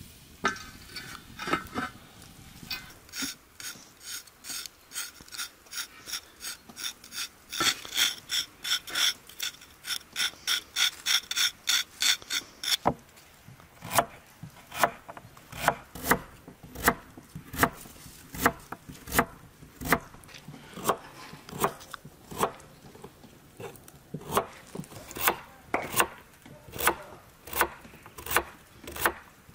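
Repeated rasping scrapes for about the first twelve seconds, quickening as they go. Then a kitchen knife slices carrots into rounds on a wooden cutting board, giving a sharp knock on the board about once a second.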